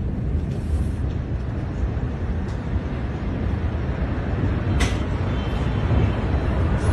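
A steady deep rumble with no clear pitch, and a sharp click about five seconds in.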